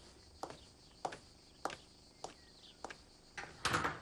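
Footsteps, evenly spaced at a little under two steps a second, then a louder clatter near the end.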